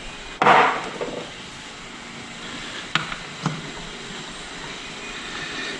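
A short metallic clatter of hand tools at the workbench, then two sharp clicks about half a second apart, over a steady background hum.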